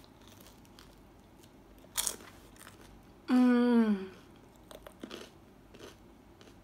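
Crusty garlic French bread being bitten and chewed: one sharp crunch about two seconds in, then faint crunching clicks. Midway a short hummed "mm" of enjoyment, falling in pitch, is the loudest sound.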